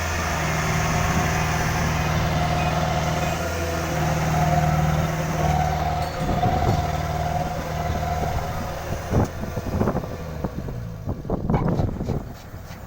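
Kubota DC-70 combine harvester's diesel engine and machinery running steadily with a high whine over the engine note. A few short knocks and rattles come near the end.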